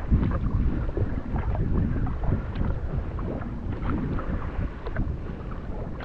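Kayak paddle strokes dipping and splashing in the creek water, with water dripping off the blades, over a heavy rumble of wind buffeting the action camera's microphone.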